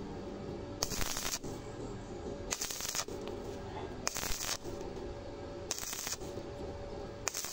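Stick-welding arc on 1 mm steel plate with a 2.0 mm E6013 rod, crackling throughout, with louder bursts about every second and a half.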